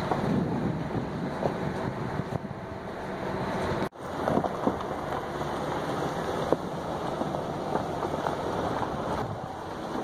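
Jeep Grand Cherokee driving slowly on a gravel fire road: tyres crunching and popping over loose stones under a steady rumble of the vehicle, heard from inside the cabin. The sound drops out for a moment about four seconds in, then the same crunching goes on.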